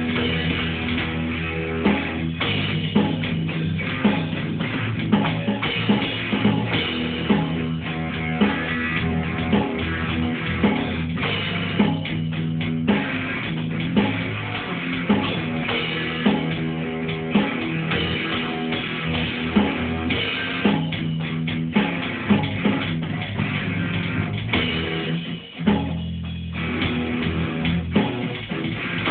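Live heavy metal improvisation by a band: electric guitar and bass over a rock drum kit, with a strong drum accent about once a second. The music thins out briefly about 25 seconds in.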